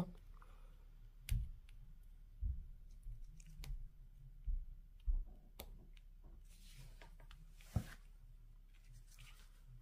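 Faint, scattered clicks and taps of tweezers setting square resin diamond-painting drills into the adhesive canvas, about seven spread irregularly across several seconds.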